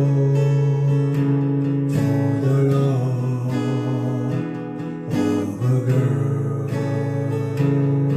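Music: an acoustic guitar strummed in a steady rhythm, playing an instrumental passage of a song.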